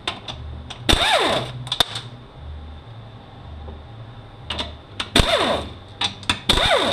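Pneumatic air ratchet running in short bursts on 13 mm bolts of a 6T70E transmission case, each burst winding down in pitch with ratchet clicks. One burst comes about a second in, then several more in the last two and a half seconds.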